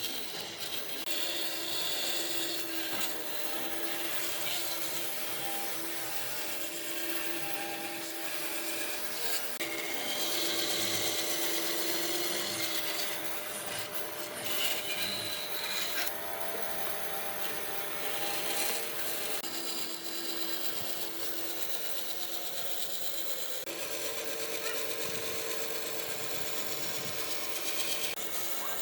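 Woodworking tools rubbing and cutting into wood, like sanding, rasping or sawing. The sound keeps going and shifts in character every few seconds.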